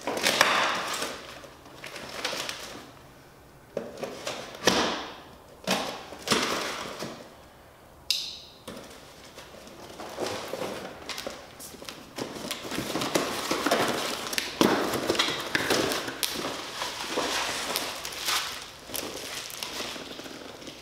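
Packing tape being ripped off a long cardboard box in several sharp tears, with cardboard knocks, then a long stretch of cardboard scraping and plastic wrap rustling as the box is tipped on end and its contents are slid out.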